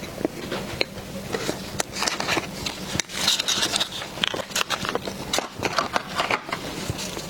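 Close-miked eating: a person chewing and biting into dessert pastry, with wet clicks and crunchy crackles, growing busier and crackly about three seconds in.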